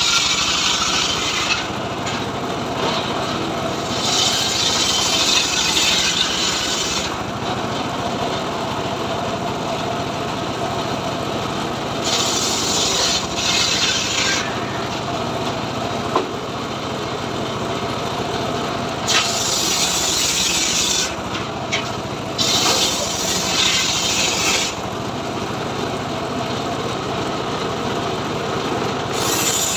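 Homemade engine-driven circular saw bench ripping a hardwood log lengthwise. The engine runs steadily, and a higher, noisy cutting sound rises over it in repeated bursts of two to three seconds each time the blade bites into the wood.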